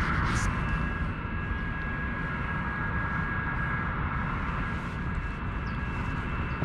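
Wind buffeting the microphone: a steady, uneven low rumble, with a thin steady high-pitched whine running above it.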